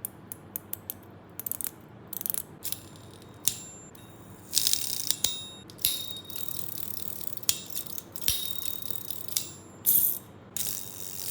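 A small plastic fidget toy being handled: a quick run of sharp ratcheting clicks in the first two seconds, then scattered clicks and several short bursts of rustling.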